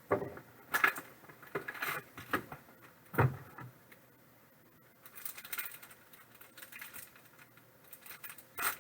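Trading-card box packaging being opened and handled: a run of sharp clicks and taps of cardboard and plastic, then, about five seconds in, a stretch of fine crinkly rustling, with another sharp click near the end.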